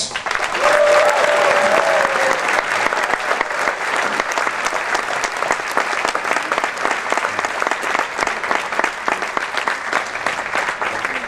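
Audience applauding steadily, the clapping slowly dying down near the end.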